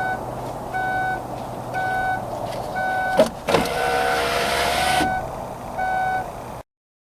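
A 2005 Kia Sedona's warning chime beeping about once a second. A little past halfway there is a click, then the power window motor runs for about a second and a half. The sound cuts off abruptly near the end.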